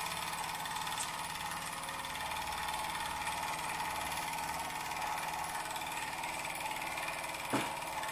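Wilesco D20 toy steam engine running steadily, an even mechanical sound from the small cylinder and flywheel. A single short knock comes about seven and a half seconds in.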